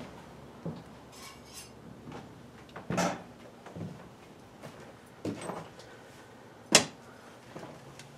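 Scattered light knocks and metallic clinks of metal tools and parts being handled in a workshop, with a louder knock about three seconds in and the sharpest click near the end.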